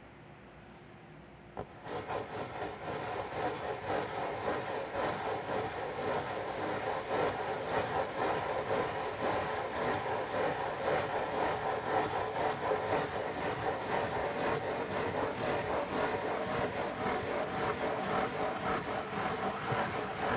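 Fingernails scratching in circles on the corrugated cardboard lid of a Pizza Hut pizza box, close to the microphone. A light tap about two seconds in, then steady, dense scratching made of many quick strokes.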